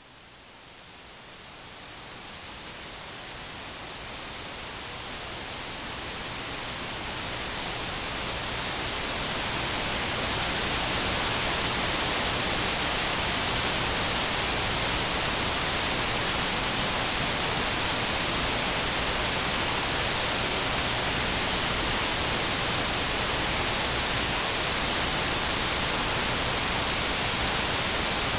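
Electronic hiss (static) with nothing else in it: it grows louder over the first ten seconds or so, then holds steady, strongest in the highest pitches.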